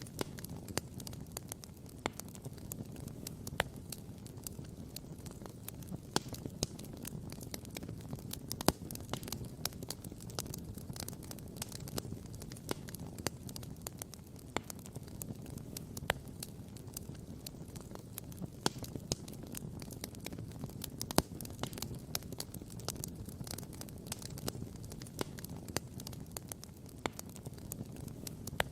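Wood campfire crackling, with frequent sharp pops over a steady low rumble.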